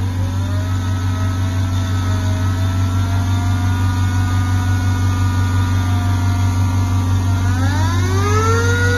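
Manual pneumatic nick grinder's air motor running on a test start, a steady whine over a low hum. Near the end its pitch climbs as the motor speeds up.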